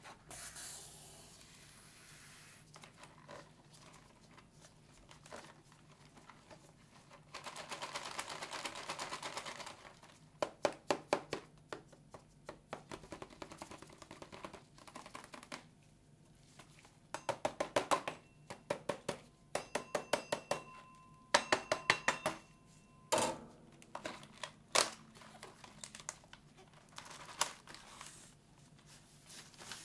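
Gloved fingertips tapping and scratching on a cardboard box, in runs of quick taps with a few seconds of steady scratching among them. Near the end the box is opened and a foil-wrapped pack is slid out.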